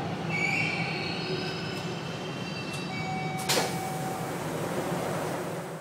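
Toronto subway train heard from inside the car: a steady low rumble with high, thin wheel squeals through the first half and a single sharp clack about three and a half seconds in.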